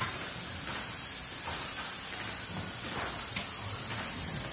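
Factory manufacturing ambience: a steady hiss with faint, irregular knocks of machinery now and then.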